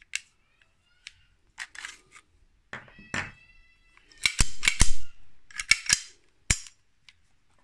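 Sharp metal clicks and clacks of a Tunç 01 1911-style blank pistol being worked by hand, its slide moved and snapping back. The loudest cluster falls in the middle, and one clack about three seconds in rings briefly like metal.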